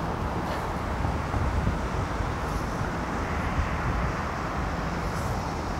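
Steady low rumble of outdoor airport ambience, with no single event standing out.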